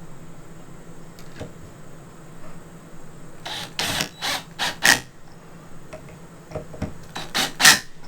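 RV door handle and lock hardware being worked: two quick runs of sharp clicks and clacks, about four a little past three seconds in and four more near the end.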